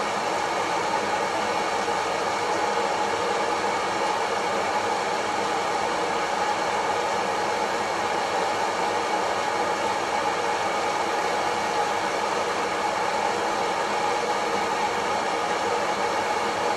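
Kaffelogic hot-air coffee roaster running mid-roast: its fan blowing hot air through the roasting chamber in a steady whoosh with a faint hum.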